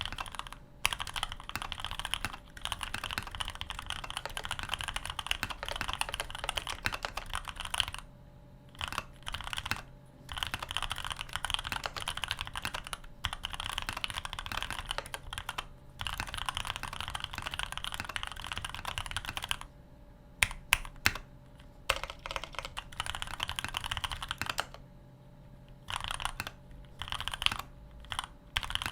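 Typing on an OTD 360C custom mechanical keyboard with black linear switches, miked up close: runs of rapid keystrokes broken by short pauses, with a few louder single strokes about two-thirds of the way through. The keystrokes have little case ring.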